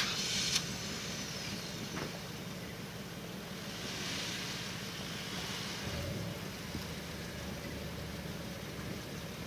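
Jeep Wrangler engine running low and steady as the Jeep crawls slowly over rocky trail, with a brief clatter right at the start and a small change in the engine note about six seconds in.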